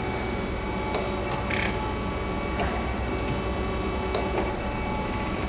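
Kent KGS-250-AHD hydraulic surface grinder running steadily in its automatic surface-grinding cycle: spindle motor and hydraulic drive humming as the table traverses and the saddle crossfeeds, with a few light clicks along the way. The machine is in nice condition, which the seller hears as very quiet.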